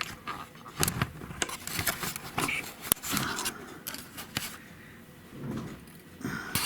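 Irregular small clicks and taps of metal carburetor parts being handled while a Rochester Quadrajet is taken apart, around the removal of the accelerator pump spring.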